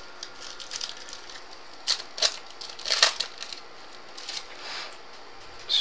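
Wrapper of a trading card pack crinkling and tearing as the pack is opened, in a few short rustles.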